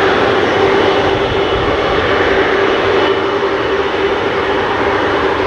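McDonnell Douglas MD-11F trijet's engines running steadily at taxi power as the freighter rolls past: a constant jet rush with a steady whining tone held through it.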